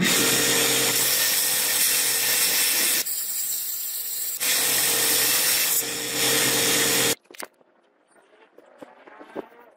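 Belt grinder running with a steel knife blank pressed to the abrasive belt: a loud grinding hiss over the motor's steady hum, throwing sparks. The sound drops and returns abruptly a few times and cuts off suddenly about seven seconds in, leaving only faint handling sounds.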